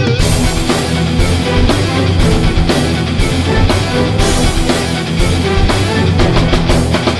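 Loud background rock music with guitar and a steady drum beat.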